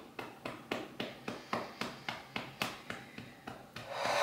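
Hand tapping lightly and rhythmically on the side of the ribcage through a shirt, about three to four taps a second, at the EFT under-arm tapping point. Near the end a long breath is blown out through pursed lips.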